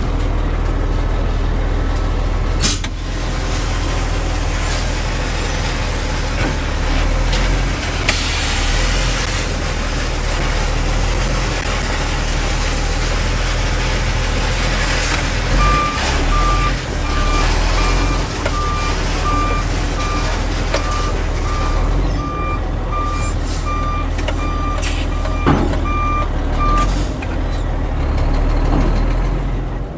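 Dump truck's diesel engine running as it backs up. Its reversing alarm beeps evenly, a bit more than once a second, for about eleven seconds in the second half. A burst of hiss comes about eight seconds in, and a few sharp knocks are scattered through.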